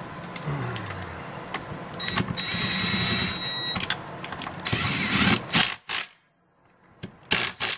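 Cordless power drill-driver running in a few short bursts, its motor whining as it drives a bolt into the engine block, with handling clicks between runs.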